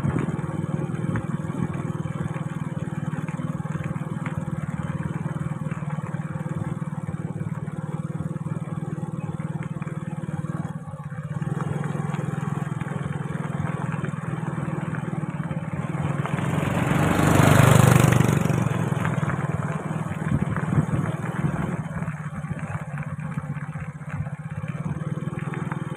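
Small motorbike engine running steadily under way, with road and wind noise. About two-thirds of the way through, a louder rushing sound swells and fades over a few seconds.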